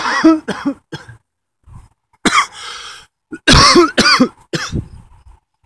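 A man coughing in several loud fits: a quick run of coughs at the start, then three more bouts with short silences between. He puts it down to feeling like he has the flu.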